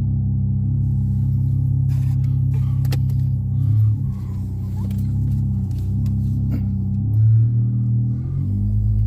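Car engine and MagnaFlow Magnapack aftermarket exhaust droning at low speed, heard from inside the cabin. The engine note shifts in pitch about four seconds in and again near seven seconds as the car pulls away.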